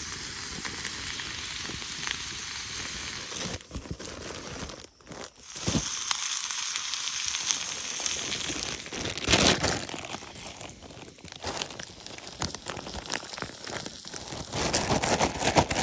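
Sliced onions sizzling steadily in a small pan over a campfire, briefly dropping out a few seconds in. Near the end a plastic salad bag crinkles as it is torn open.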